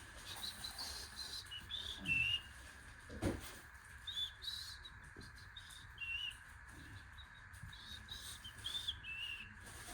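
A bird singing: short high chirps and whistled notes in quick clusters throughout, over a faint steady high tone. A single sharp knock about three seconds in.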